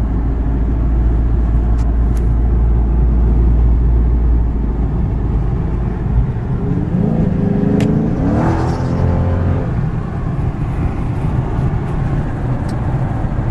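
A 2014 Dodge Charger SRT's 6.4-litre HEMI V8 running through a Corsa exhaust while driving, with a deep, steady low drone in the cabin. The drone drops away about six seconds in, and the engine note glides up and down briefly a little later.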